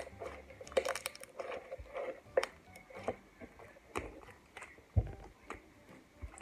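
Slime being squeezed and pulled by hand, giving irregular sticky clicks and pops.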